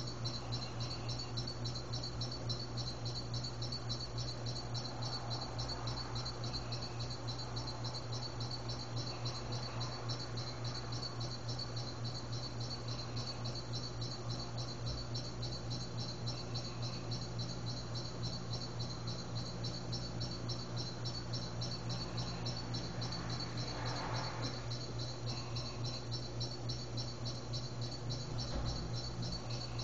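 Insects, crickets by the sound of it, chirping in a steady fast high-pitched trill, with a faint higher call recurring every few seconds, over a steady low hum.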